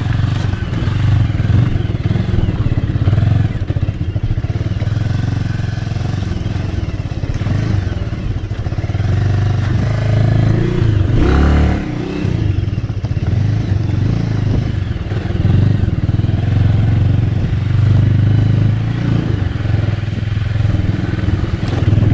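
Bajaj Avenger 220's single-cylinder engine running steadily as the motorcycle is ridden slowly down a rough off-road track. There is a brief clatter about halfway through.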